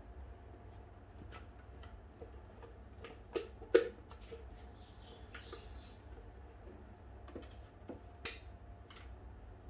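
Lightly whipped cream being folded into chocolate ganache in a bowl: soft scrapes and light clicks of the utensil against the bowl, with a sharp knock a little under four seconds in.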